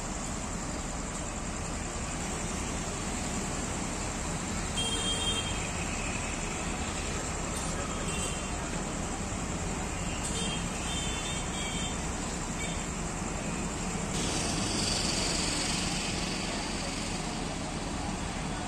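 JCB excavator running steadily at a rock face, its engine and hydraulics a constant drone, with the hiss swelling about 14 seconds in.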